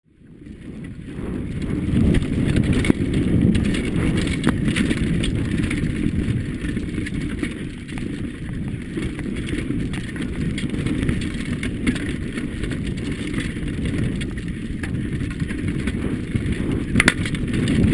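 Intense Slopestyle mountain bike descending a rocky, stony track: a steady rumble of tyres over stones and dirt, with frequent sharp rattles and knocks from the bike over the bumps, under wind buffeting on the helmet camera's microphone. It fades in over the first two seconds.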